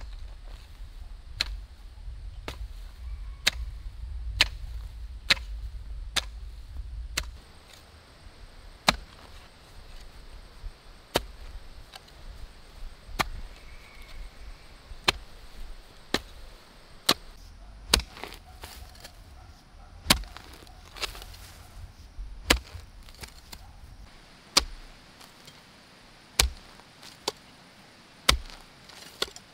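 Hoe blade chopping into grassy soil, a sharp strike about every one to two seconds as turf is dug up. The last few strikes near the end come with a duller thud.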